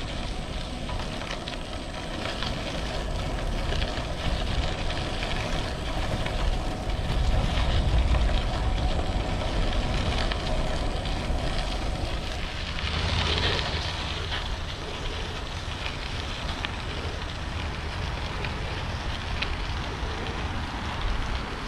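Bicycle tyres crunching steadily over a gravel trail, a fine continuous crackle, with wind rumbling on the handlebar-mounted action camera's microphone.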